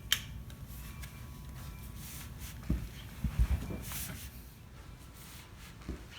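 Low room rumble with rustling handling noise and a few soft knocks, the loudest cluster about three seconds in.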